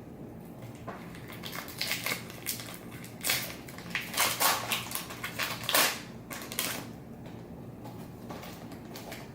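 Crinkling of a trading-card pack's wrapper being handled, in a run of irregular crackles that is loudest in the middle and dies away toward the end.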